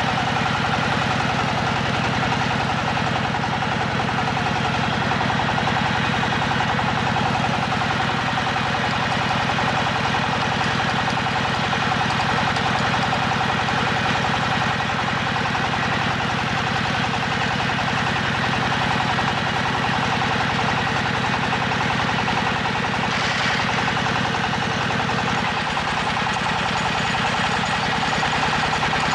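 Engine of a hydraulic water-well drilling rig running steadily, with a dense, even rhythm. The low note changes a little about 25 seconds in.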